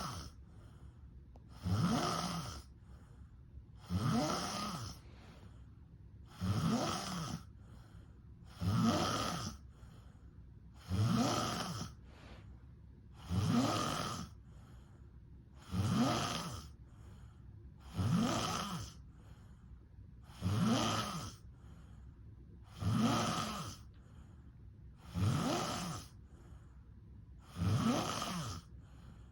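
A person snoring in sleep, one snore about every two and a half seconds, each lasting under a second and rising then falling in pitch.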